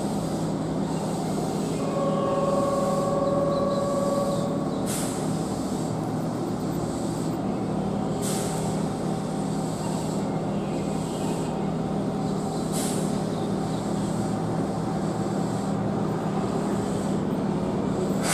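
Keihan Main Line electric train at the station, a steady rumble throughout. A single held tone sounds about two seconds in for roughly two and a half seconds, and three short hisses come a few seconds apart.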